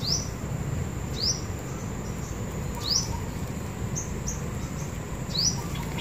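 A bird calling with short, sharp rising chirps, about six of them spaced roughly a second apart, over steady low background noise.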